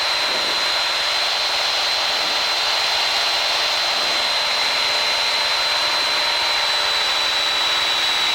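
Steady cabin noise of a Piper PA-28-161 Cherokee with its engine running while holding short of the runway, an even hiss with a thin, high-pitched steady whine over it.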